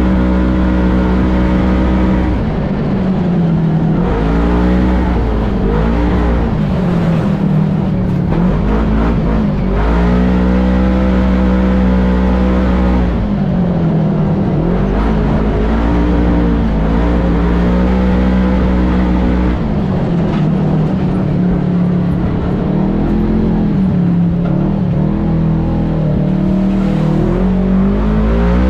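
Side-by-side UTV engine running under load, heard from the cab, its pitch rising and falling over and over as the throttle is opened and eased off along the trail.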